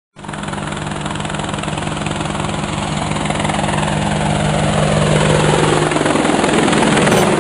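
Quadcopter drone rotors buzzing: a dense, steady hum that grows gradually louder, with a tone sliding slowly downward through it in the second half.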